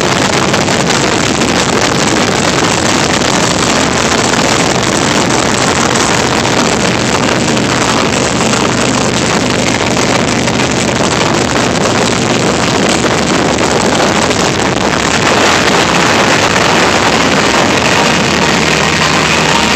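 Wind rushing over a handheld phone's microphone on a moving Harley-Davidson Heritage Softail, with the V-twin engine's steady drone underneath. The rush grows louder about fifteen seconds in.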